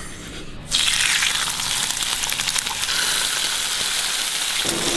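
Bacon rashers sizzling in hot vegetable oil in frying pans, a steady hiss that starts suddenly under a second in. A steady hum joins near the end.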